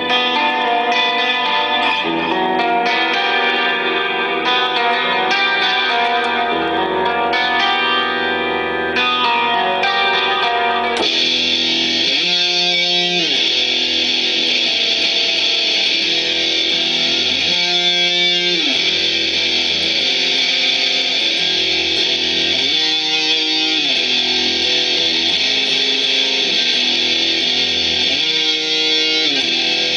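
Solo electric guitar playing a metal riff through distortion and effects. For about the first eleven seconds separate notes ring out clearly, then the tone turns suddenly much brighter and denser, with a swooping figure that comes back about every five seconds.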